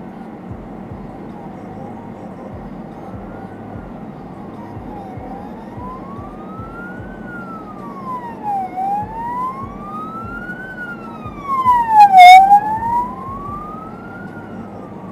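Emergency vehicle siren wailing, slowly rising and falling about every three and a half seconds and growing louder as it approaches, heard from inside a car over steady cabin noise. About twelve seconds in, a short, much louder blast cuts across it.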